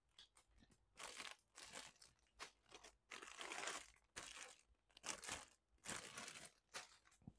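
Clear plastic bags around model-kit parts runners crinkling faintly as hands lift and shuffle them, in short irregular rustles.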